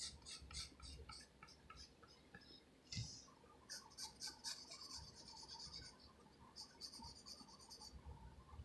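Wooden graphite pencil scratching on paper in short, quick sketching strokes, faint; the strokes come a few per second at first, then in denser runs of rapid hatching in the middle and again near the end, with a soft tap about three seconds in.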